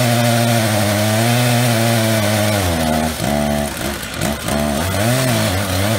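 Two-stroke Stihl chainsaw power heads, a 066 and an 088, driving the chain of a double-ended Alaskan mill at high revs as the bar travels along an existing cut in an oak log. The engine note holds steady, then dips and wavers about three seconds in before steadying again near the end.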